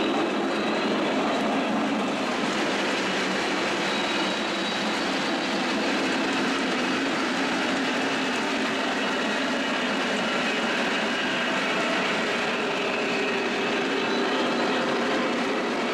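O gauge model trains running on the layout's three-rail metal track: a steady rolling rumble of wheels on rails, with faint high squeals now and then.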